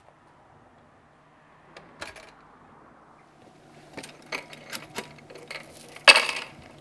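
Metal clicks and knocks of a camera tripod's legs and fittings being handled on a track dolly's platform. A quick run of small clicks ends in one louder clatter about six seconds in.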